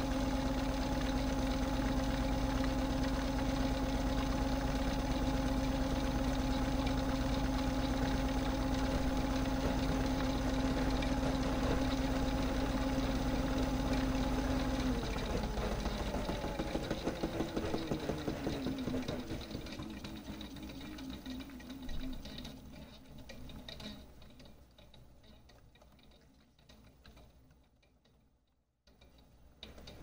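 Miele Softtronic toy washing machine's replacement motor and drum running fast with a steady hum; about halfway through the drive cuts out and the drum coasts down, the pitch falling and the sound fading, with some rhythmic rattling as it slows, to near silence. A new mechanical sound starts just before the end.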